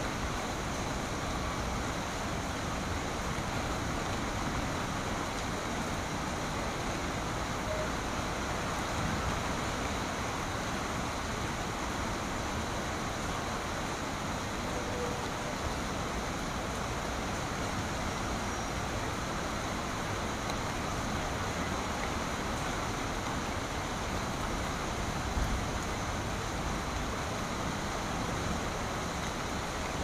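Steady rain falling on tree leaves, an even, unbroken hiss.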